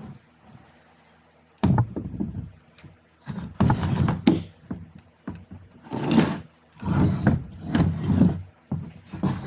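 Irregular clunks, knocks and scraping of transfer case parts being handled and fitted together on the bench, in about six clusters starting a little over a second in.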